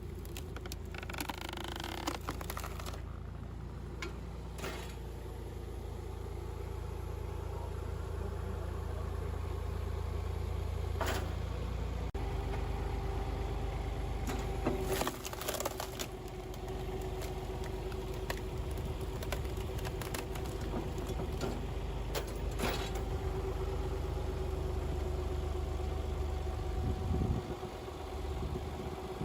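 Motor of a homemade firewood splitter running steadily, with a low hum and a steady drone. Sharp knocks and cracks cut in several times as logs are worked.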